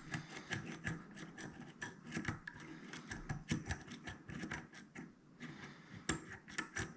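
Dimple pick being worked gently up and down against the pins inside a dimple lock cylinder: a quiet string of small, irregular metal clicks and scrapes.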